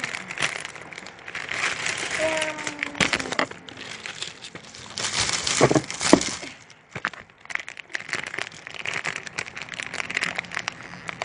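Plastic packaging crinkling and rustling in uneven spells as a squishy toy is unwrapped and handled, with a brief lull just past the middle.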